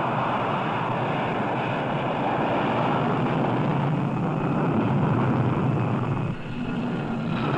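Jet aircraft engines running at high power during a catapult launch from a carrier deck: a steady rushing noise that dips briefly about six seconds in, with a falling whine starting near the end.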